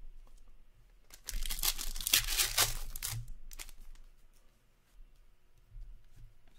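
Foil wrapper of a hockey card pack being torn open by hand: a crackling rip starting about a second in and lasting about two seconds, followed by a few faint rustles.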